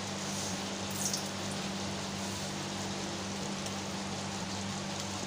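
Fish curry boiling in a clay pot: a steady bubbling, sizzling hiss with a faint low hum beneath it.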